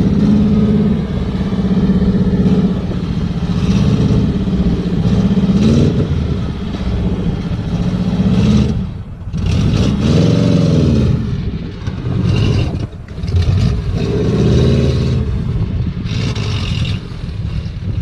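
Car engine revving hard in repeated rising and falling surges, with a brief dip about nine seconds in, as the off-road vehicle works through the mud.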